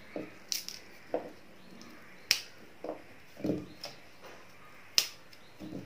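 Fresh ginger root being snapped apart by hand: a few sharp snaps, the loudest about two seconds in and about five seconds in, with softer knocks and handling sounds between them.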